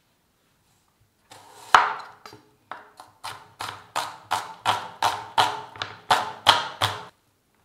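A kitchen tool striking food hard and rhythmically: one heavy blow, then about a dozen even strikes roughly three a second, each with a short ringing note.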